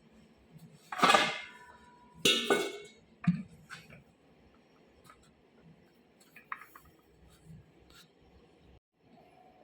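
Metal clanking as an electric motor's parts and tools are handled: two loud clanks with a brief ringing tone, about a second in and again a second later, then a sharper knock and a few light clicks.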